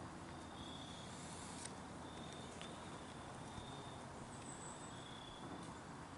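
Faint insect song in woodland: a short high trill repeated about every second and a half, over a quiet hiss, with a couple of faint clicks.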